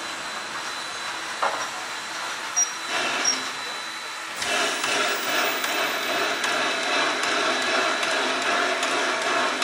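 Rx class 4-6-0 steam locomotive approaching under steam, a steady hiss of working steam with a few sharp knocks. About four seconds in it suddenly grows louder and fuller as the engine draws near.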